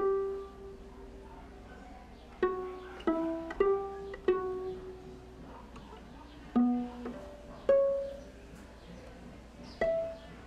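Pizzicato on a bowed string instrument: single plucked notes at changing pitches, each ringing briefly and dying away, spaced irregularly a second or two apart.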